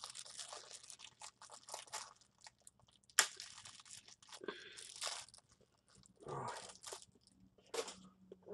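Close crunching and crinkling from a takeaway meal being handled and eaten: short irregular rustles and crackles of packaging and food, with one sharp click about three seconds in.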